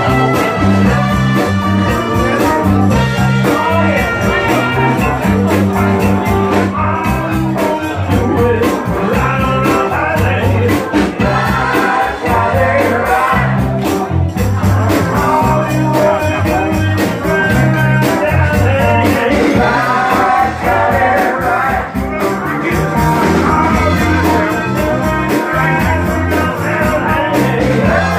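Loud music with a sung vocal over a steady bass line, played in a bar.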